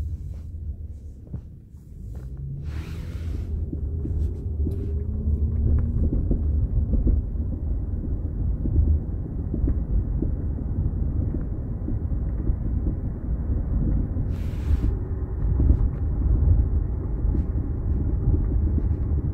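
Cabin sound of a 1998 Toyota Camry on the road: low road rumble that drops away about a second in and then builds again as the engine pulls away, with frequent knocks and clunks from the newly fitted aftermarket struts, which the owner takes to be faulty. Two short hisses, about three seconds in and near the end.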